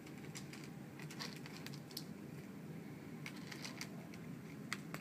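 Two cats crunching dry kibble from plastic bowls: irregular small crunches and clicks over a low steady hum.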